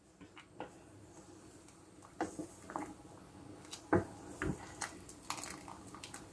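A spoon stirring rice in a large stainless steel pot of boiling water, with a few light knocks and clicks of the utensil against the pot. The loudest knock comes about four seconds in.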